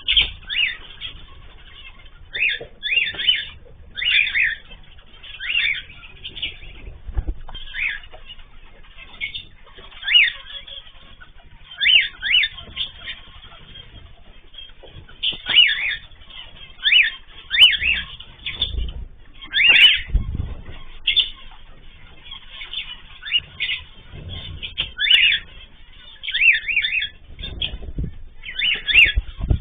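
Pet cage birds calling, short chirps and whistles in clusters every second or two, with the dull flutter of wings now and then.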